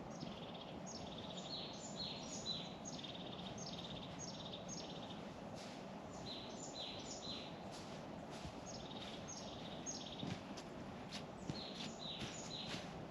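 A songbird singing runs of short, high notes that slide downward, over steady low outdoor background noise. Footsteps start in near the end.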